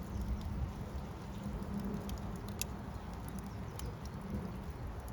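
Fire crackling: scattered sharp pops and snaps at uneven intervals over a steady low rush of the flames.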